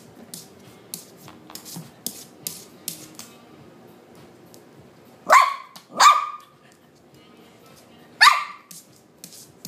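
A papillon barks three times, two short barks in quick succession past the middle and a third near the end. Before the barks there is light ticking of its claws on the hard tiled floor.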